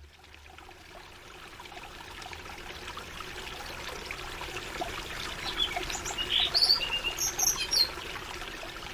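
Stream babbling, fading in over the first few seconds, with birds chirping over it from about halfway through.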